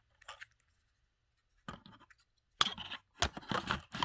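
Plastic handling noises as a DJI Mavic Mini's battery is slid into the drone's battery bay: scraping and rubbing with a few sharp clicks, busier in the second half, with the sharpest click about three seconds in.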